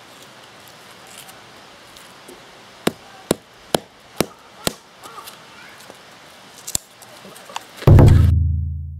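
Ultra Natura fibreglass-handled hand hatchet striking a piece of kindling on a chopping stump: five sharp knocks about two per second as the wood is split, then a couple of lighter clicks. Near the end a loud low boom starts suddenly and fades out.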